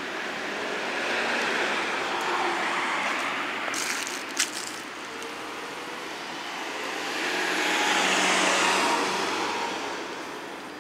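Cars passing on a street, their tyre and road noise swelling and fading twice, the second pass louder, about two-thirds of the way in. A single sharp click a little after four seconds in.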